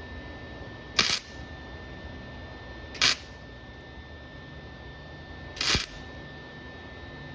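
Three brief crackling bursts of a welding arc, about two seconds apart, like short tack welds, over a faint steady high tone.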